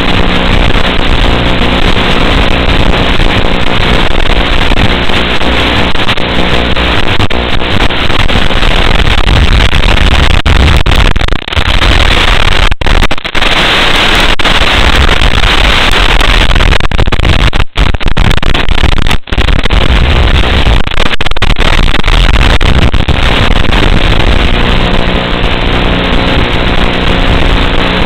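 Loud, steady hiss and buzz of static on the analogue FPV video link's audio channel, broken by a few brief dropouts to silence about 13 seconds in and again around 18 and 19 seconds.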